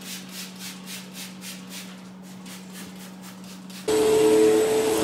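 A trigger spray bottle of all-purpose cleaner squirted rapidly, about four or five hissing squirts a second, fading out after about two seconds, over a steady low hum. Near the end an upright vacuum cleaner starts up suddenly and much louder, running with a steady whine.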